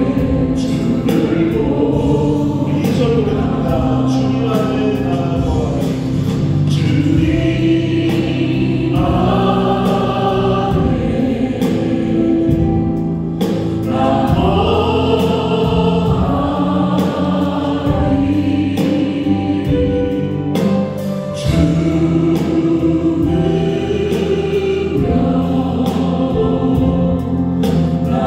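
Church praise team singing a Korean gospel worship song together, backed by keyboard, drums and bass guitar, with drum hits keeping the beat.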